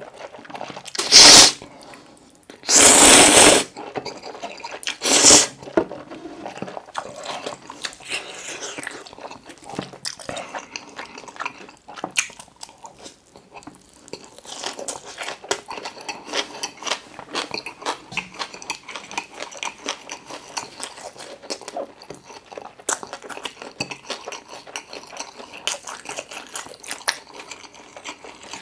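Close-miked eating: three loud slurps of curry ramen noodles in the first five seconds, then steady wet chewing with many small clicks and crunches of noodles and gimbap (seaweed rice roll).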